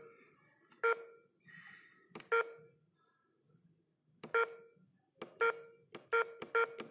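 Key-press beeps from an eSSL fingerprint attendance terminal as its buttons are pressed: six short, identical beeps, irregularly spaced, two of them close together near the end.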